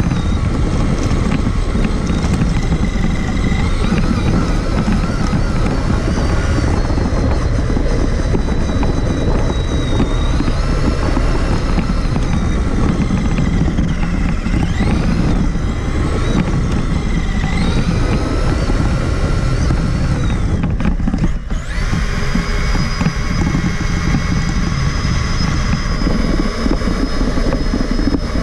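Electric motor and drivetrain of a Traxxas Summit 1/10-scale RC truck running under changing throttle: a whine that rises and falls in pitch over a rough, continuous rumble. About twenty-one seconds in it dips briefly, then settles into a steadier, higher whine.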